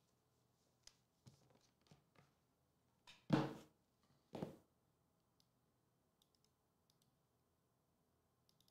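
A quiet room with a few faint clicks and taps from a pen and hands on the desk, then two short, soft noisy sounds about three and four and a half seconds in.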